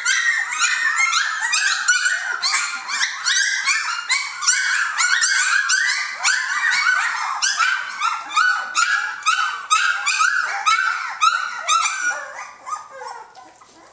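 A litter of three-week-old Jamthund (Swedish Elkhound) puppies yelping and squealing in a constant chorus of many overlapping high-pitched cries as they crowd their mother to nurse; the cries thin out near the end.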